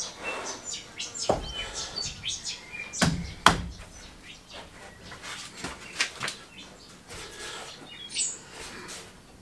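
Knocks and clinks from heavy 2 V lead-acid battery cells and their metal terminal bars being handled on a shelf, the two sharpest knocks about three seconds in. A few short high chirps sound between them.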